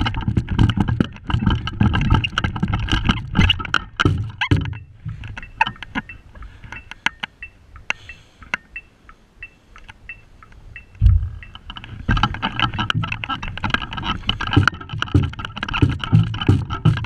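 Marching drumline playing: rapid sharp drum strokes on tenor drums and snares over low bass-drum hits. After about four seconds the playing thins to sparse light clicks, then a loud low bass-drum hit comes about 11 seconds in and full playing resumes about a second later.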